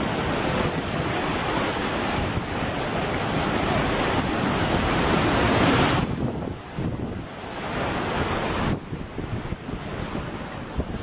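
Small waves breaking and washing up a sandy beach, with wind buffeting the microphone. The surf noise drops suddenly about six seconds in and again near nine seconds.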